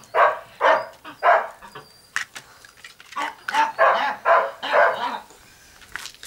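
A puppy barking in short, high yaps: three spaced about half a second apart, then after a pause a quicker run of about six.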